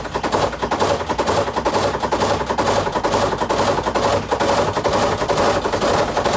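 Samsung top-load washer on a high-speed spin, its drum knocking and rattling rapidly and without a break.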